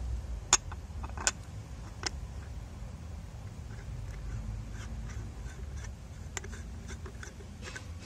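Threaded metal stud of a flexible stand neck clicking against the threaded boss of a metal base plate: three sharp clicks in the first two seconds, then a run of faint ticks as it is screwed in, over a low steady rumble.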